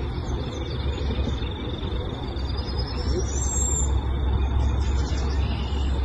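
Wind buffeting the microphone outdoors, a heavy low rumble over a rustling hiss. A thin, steady high tone runs through it, and a high whistle rises and levels off about two to four seconds in.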